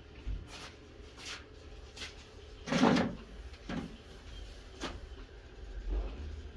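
A string of irregular knocks and clunks, about eight, from things being handled and set down, the loudest about three seconds in.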